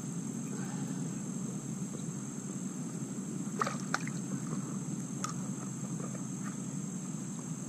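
A hand dipping into shallow ditch water, with a few short splashes and clicks about halfway through, over the low slosh of water around waders and a steady high insect drone.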